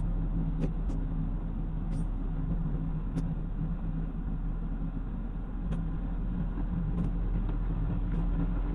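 A car engine running steadily with road noise while driving, with a few short clicks scattered through.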